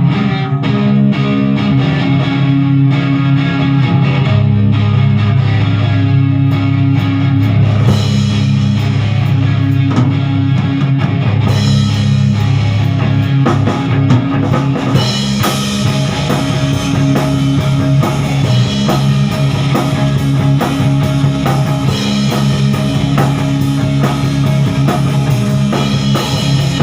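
Rock band playing an instrumental passage with guitar, bass and a drum kit, no vocals. The low end fills out about four seconds in, and the cymbals and treble get brighter from about fifteen seconds in.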